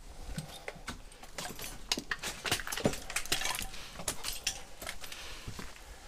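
Footsteps on loose rubble and broken shards, a dense, irregular run of sharp crunches and clinks as the debris shifts underfoot.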